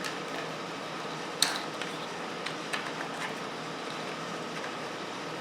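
Steady background hum with a few light, sharp clicks and taps from a motorcycle wiring harness and its connectors being handled and pulled apart; the loudest click comes about a second and a half in.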